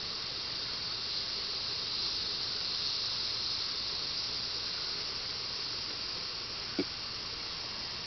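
Steady high hiss of a rainforest insect chorus, swelling slightly a couple of seconds in, with one short low tap near the end.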